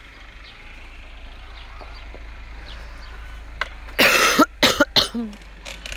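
A person coughing: one loud cough about four seconds in, followed by three or four shorter coughs, over a steady low hum.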